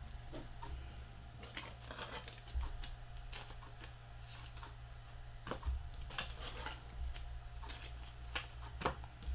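Trading cards being handled and sorted by hand: scattered light clicks and snaps at an irregular pace, over a steady low hum.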